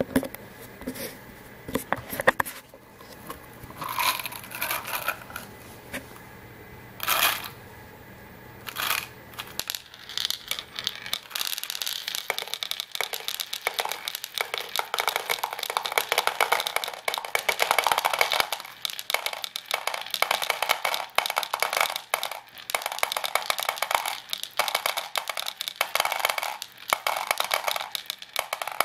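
Steel ball bearings poured from a plastic box into plastic spoon rests, clattering and rattling as they roll around and drop through a hole into the plastic tub below. A few scattered knocks come first; from about eleven seconds on the clatter is dense and continuous.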